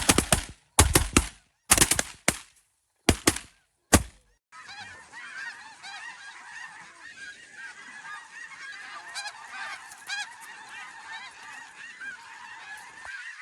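A volley of shotgun blasts from several guns in quick succession over the first four seconds. After it, a large flock of snow geese calls continuously in a dense chorus of overlapping high honks and yelps, which cuts off abruptly near the end.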